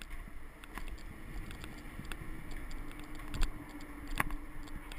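Footsteps on metal stair treads with light metallic clinks: scattered irregular taps and clicks, with one sharper click about four seconds in.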